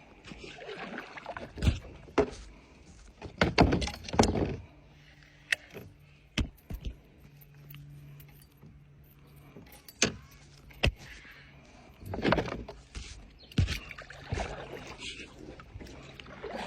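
Knocks and clunks on a kayak's hull from gear being handled, with short swishes between them and a faint steady hum underneath.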